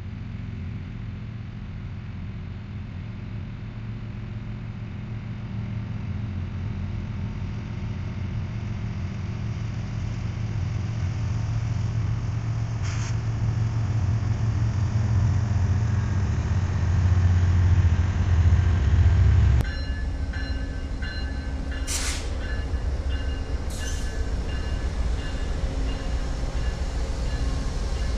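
Diesel locomotives on an approaching freight train, their low rumble growing steadily louder for about twenty seconds. It then cuts to an Amtrak P42DC diesel locomotive idling with a steady hum, with two short sharp bursts of noise about two seconds apart.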